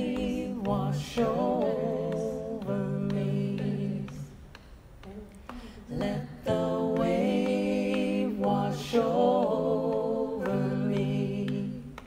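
Unaccompanied voices singing a slow, repeated chant in parts, a held lower line under a moving melody. There are two long phrases with a short break about halfway through.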